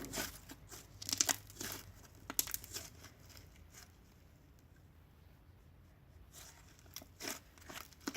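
Slime being squeezed and worked by hand, giving irregular crackly, squelching bursts, with a quieter lull in the middle.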